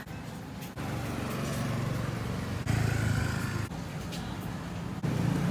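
Street traffic with motorbike engines running close by: a steady low engine hum whose loudness jumps abruptly a few times.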